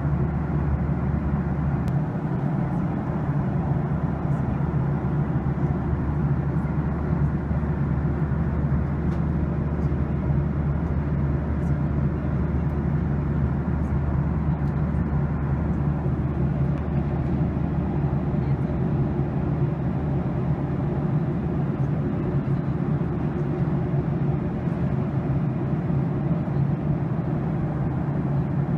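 Jet airliner cabin noise in cruise: a steady, even rush of engine and airflow noise with a low hum underneath.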